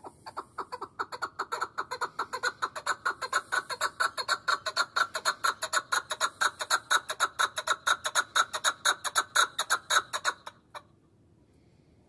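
Chukar partridge calling: a rapid run of chuck notes, about six a second, growing louder over the first few seconds. It stops abruptly after about ten seconds, with one last lone note.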